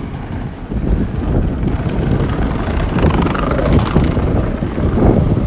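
Wind buffeting the microphone, a loud uneven low rumble, with a rushing swell about halfway through.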